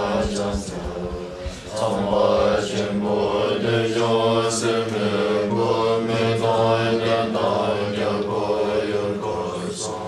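A group of voices chanting Buddhist prayers in unison, a low, steady recitation with a short break about two seconds in.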